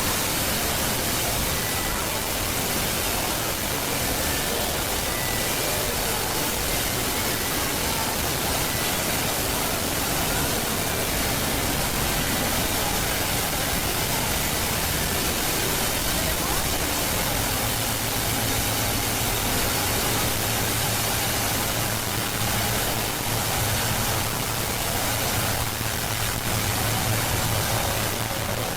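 Steady, even hiss of noise with no speech or music, and a low hum that comes in about two-thirds of the way through and grows stronger near the end.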